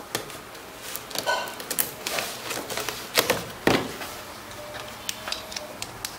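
A blade slicing through a cardboard box, with scraping cuts and sharp clicks and snaps of the card, the loudest two a little after three seconds in.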